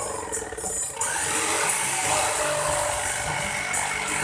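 Electric jigsaw cutting an MDF board, its blade running steadily through the sheet. The sound drops briefly near the start and picks up sharply again about a second in.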